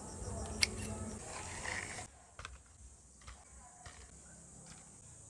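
A single sharp snip of pruning shears cutting a dragon fruit from its stem, with rustling from handling the fruit and a steady high chirring of crickets behind. About two seconds in, the crickets stop abruptly, leaving faint quiet with a few soft ticks.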